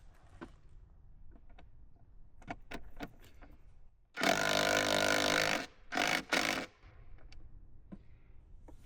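Cordless power driver running for about a second and a half, then in two short bursts, driving a 3/8 by 4-inch lag bolt into a 4x4 post. A few light clicks and knocks come before it.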